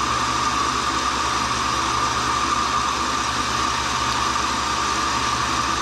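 Tool and cutter grinder running steadily with its wheel not yet in the cut: a constant whine over a low hum.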